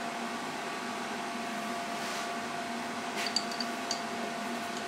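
Steady electric hum of workshop machinery, with a few light metallic clinks a little over three seconds in as the flywheel is shifted on the milling machine table.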